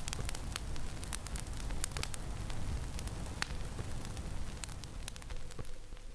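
Fire crackling, with irregular sharp pops over a low rumble.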